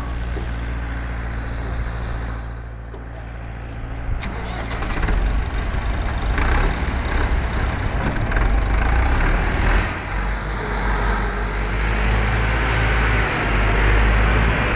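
Tractor engine running steadily, getting louder and rougher about four to five seconds in and staying loud, with a single sharp click just after the four-second mark.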